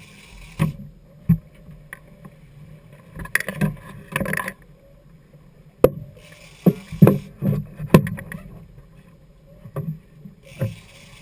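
Big-game rod and reel being worked against a hooked fish at the stern of a boat: irregular sharp knocks and thumps of gear and handling, with a few short stretches of hiss. Underneath is the low, steady running of twin outboard engines in gear.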